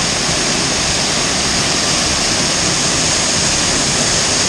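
Grotto Falls, a waterfall, pouring over a rock ledge into its plunge pool close by: a loud, steady rush of falling water.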